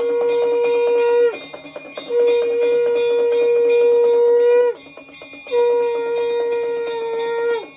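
Conch shell blown in three long, steady blasts, each dropping in pitch as it ends, over a hand bell rung rapidly throughout: the conch and bell of a temple aarti as the flame offering is waved.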